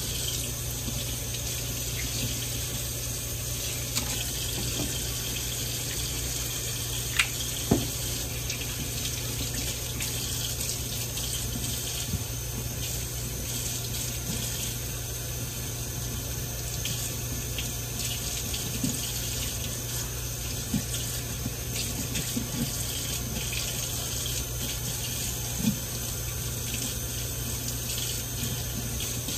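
Sink tap running steadily onto hair that is being washed under it, with a few brief knocks, two of them a little after seven seconds in.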